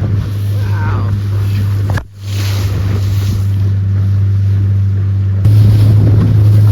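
Motorboat engine running with a steady low hum over wind and water noise. It drops out briefly about two seconds in and comes back louder near the end.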